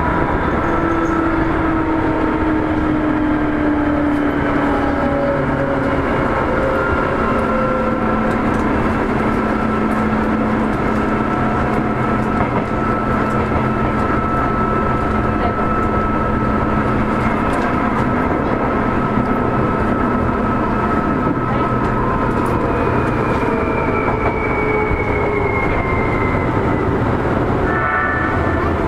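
Onboard running sound of a Seibu 2000-series electric train: steady rumble of wheels on rail, with the traction motors and gears whining in several thin tones. Their pitch sinks slowly as the train slows.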